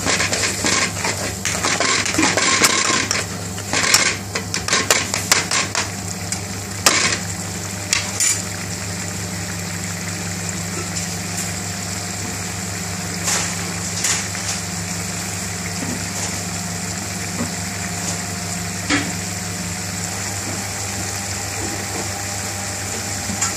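A metal spoon stirring and scraping a curry sauce in a metal pan, with clinks against the pan, for the first eight seconds or so; after that the watery sauce simmers and bubbles with a steady hiss and only an occasional clink. A steady low hum runs underneath.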